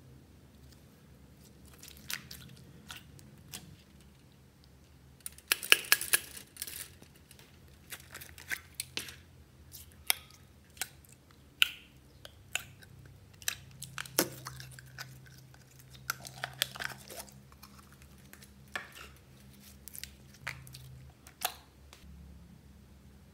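Slime being stretched, squished and poked by hand in a glass dish, giving sticky clicks and pops. There is a dense run of crackling about six seconds in, then scattered single pops.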